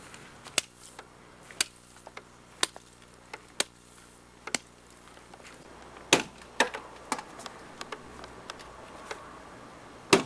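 Hammer blows on a plastic pager: sharp knocks about once a second, then a few more irregular strikes and a loud one near the end.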